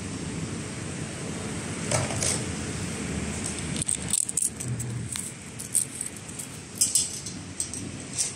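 Steel machine stand rolling on its casters across a concrete floor: a steady low rumble with scattered light metallic clinks and rattles, most of them in the second half.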